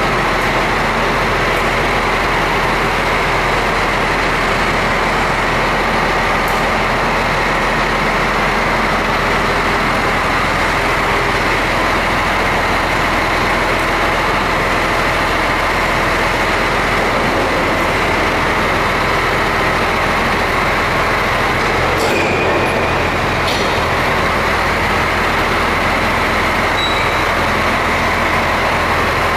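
Steady machinery noise in a large factory hall: an even rush with a constant low hum. A faint click comes about three quarters of the way through.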